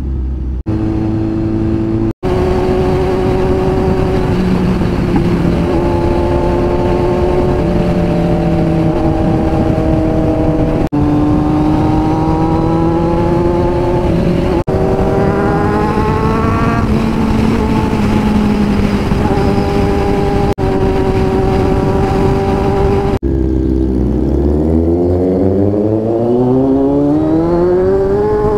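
Kawasaki motorcycle engine under way, heard from the handlebars over steady wind rush. Its note climbs in pitch again and again as it pulls through the gears, with a few abrupt cuts between stretches, and a strong rev-up through the last few seconds.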